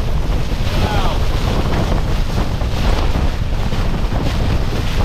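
Strong gusting mountain wind battering a small tent, with heavy wind rumble on the microphone.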